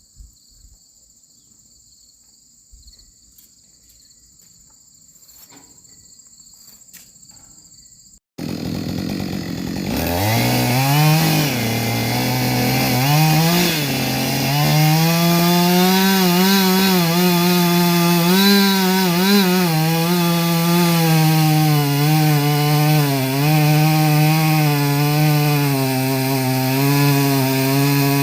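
Quiet at first, with a steady high insect drone. About ten seconds in, a chainsaw comes up to high revs and keeps running loud, its pitch dipping and recovering as it cuts into dead ash wood.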